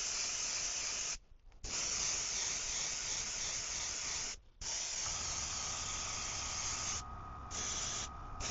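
Airbrush spraying silver paint: a steady hiss of air in long bursts, cut off briefly as the trigger is let go, about a second in, at about four and a half seconds, and twice near the end.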